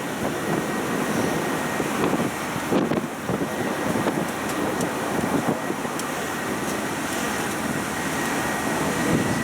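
Tourist road train running along the road, with steady engine and road noise heard from on board and a faint steady high tone over it.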